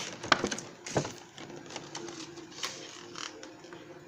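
Packaging being handled during an unboxing: rustling with a few sharp clicks and taps, the strongest about a second in, over a faint steady hum.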